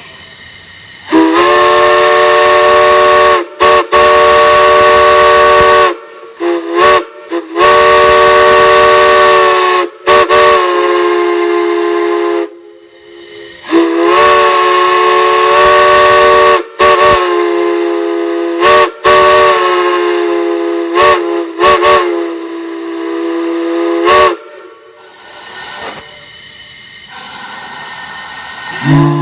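A chime whistle sounding a chord of several notes, blown in a string of long blasts and short toots; the chord slides up as each blast opens and sags as it closes, with a hiss between blasts.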